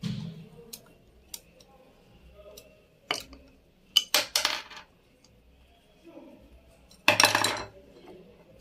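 Metal clicks and clinks as the face plate cover of an industrial lockstitch sewing machine is worked loose and lifted off with a screwdriver: a few separate clicks, a cluster of clinks about four seconds in, and the loudest clatter about seven seconds in.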